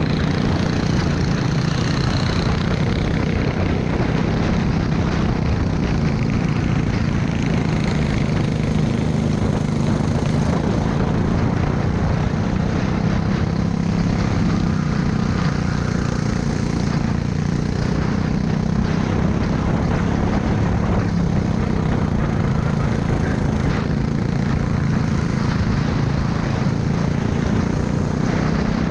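Go-kart engine running steadily under throttle on track, heard onboard, its note shifting only a little with speed through the corners.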